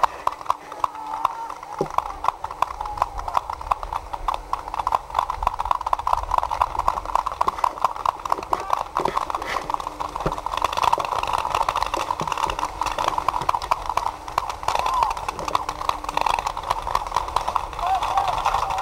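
Paintball markers firing: a steady, irregular run of sharp pops, several a second.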